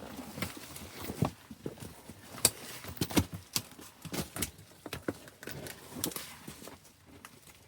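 Footsteps on rough ground: an irregular run of sharp crunches and knocks, several a second, thinning out near the end.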